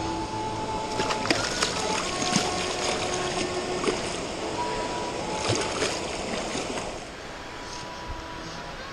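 Water splashing and running over rocks at a spillway, with a few sharp knocks and scrapes close by, easing off about seven seconds in.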